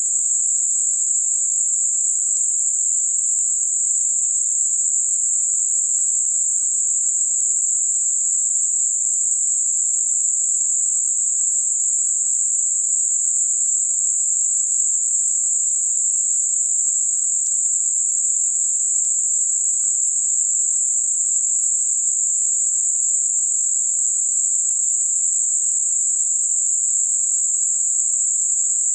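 Synthetic Gaussian narrowband noise centred on 7.5 kHz, a steady high-pitched hiss that never changes in level, generated as a masking sound for high-frequency tinnitus.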